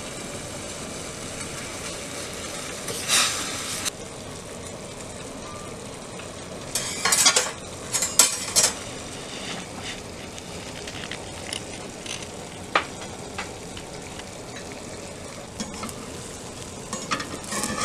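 Pancake batter frying in a buttered pan, a steady sizzle. A few sharp clatters come about seven to nine seconds in, with single knocks later on.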